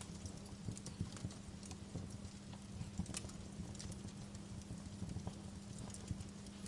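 Wood fire burning in a fireplace, crackling with frequent irregular snaps and pops over a low steady rumble.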